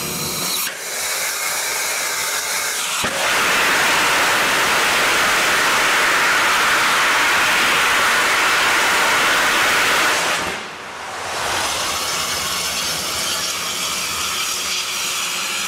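3D-printed rocket engine test firing on a stand. A softer hiss comes first, then about three seconds in a sudden loud, steady rush of the engine burning. It holds for about seven seconds, dips briefly, and a quieter hissing rush carries on to the end.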